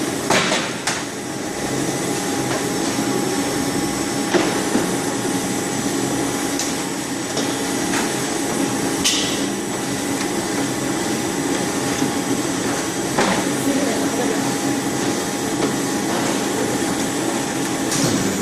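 Squid-processing machinery running steadily with a constant hum, broken by a few sharp knocks spaced several seconds apart.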